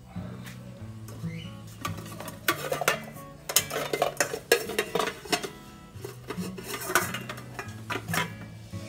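Glass pot lid and metal pot clinking and knocking against each other as they are lifted and handled, a series of sharp clinks, over soft background music.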